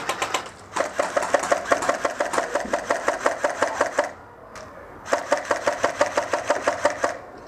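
Airsoft gun firing on full auto: two long bursts of rapid, evenly spaced shots, the first about three seconds long, the second about two, with a short pause between.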